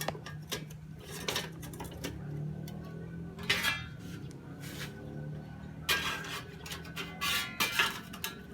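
Metal parts of a pressure lantern clinking and scraping as they are handled: a run of irregular sharp clinks, some with a short ring, loudest about a third of the way in and again near the end, over a steady low hum.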